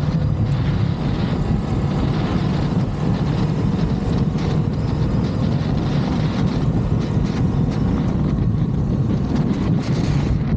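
Ducati DesertX's 937 cc V-twin engine running steadily as the motorcycle rides along a dirt track, with wind rushing over the microphone.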